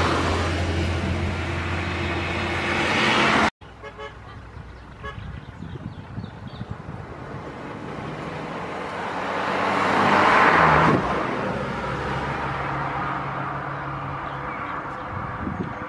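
Road vehicles: engine and tyre noise with a horn tooting. The sound cuts out suddenly about three and a half seconds in, then a vehicle's noise builds to a peak around eleven seconds and drops back.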